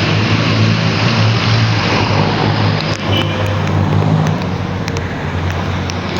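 Motorcycle engine running at a steady pace while riding, with wind and road noise rushing over the microphone.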